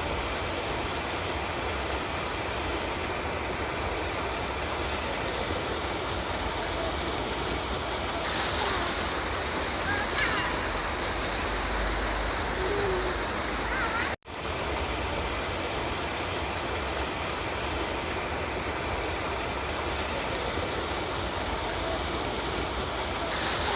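River water flowing steadily, an even rushing noise. It cuts out abruptly for a moment about two-thirds of the way through, then resumes unchanged.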